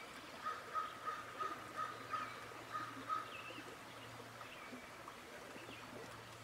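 A run of about eight turkey yelps, roughly three a second, ending about three seconds in, over faint songbird chirps.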